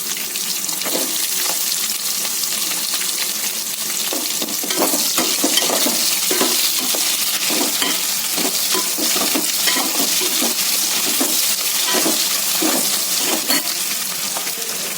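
Chopped onion sizzling in hot vegetable oil with bay leaves and whole spices, a steady frying hiss, while a spoon stirs and scrapes against the pan in irregular knocks. The sizzle grows a little louder about a third of the way in.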